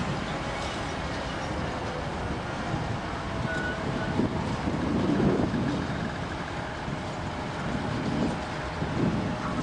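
Diesel locomotives working a freight train, heard from a distance: a steady engine rumble that swells about halfway through and again near the end.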